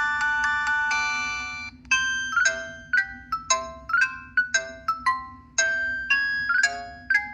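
Samsung SCH-A850 flip phone playing its preloaded polyphonic ringtones. A sustained electronic chord pattern with a ticking beat stops about two seconds in. A new melody of quick struck, marimba-like notes follows, about two or three a second.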